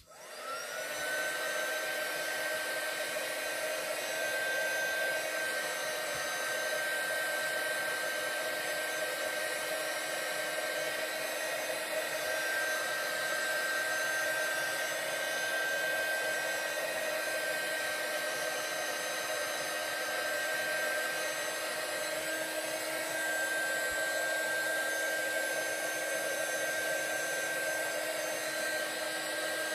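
A craft heat tool is switched on. Its fan spins up with a rising whine in the first second, then runs steadily with a high whine over a rush of air.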